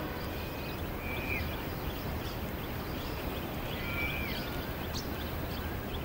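Steady rushing noise of Victoria Falls' falling water, with a bird whistling short clear notes that drop at the end, once about a second in and again about four seconds in.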